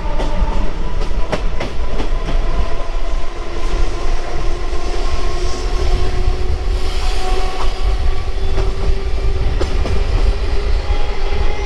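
An electric multiple-unit (EMU) local train running at speed: a constant rumble with a steady whine, and occasional clacks as the wheels pass over rail joints.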